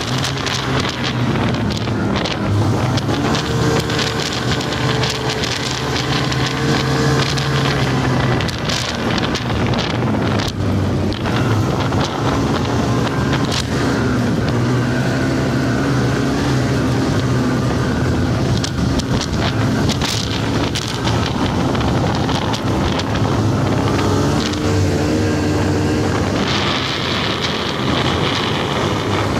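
Snowmobile engine running under way, its pitch rising and falling with the throttle, with wind noise on the microphone and occasional knocks and rattles.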